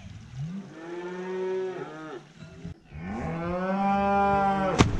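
Cattle mooing: two long bawls, the second louder and longer, both sliding down in pitch at the end. A sharp knock comes near the end.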